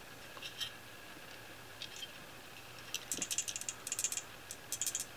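A loose part rattling inside the sealed plastic clamp of an AEMC SL261 current probe as it is shaken: quick clusters of small clicks in the second half, with a few single clicks before. The owner takes the loose part for a screw.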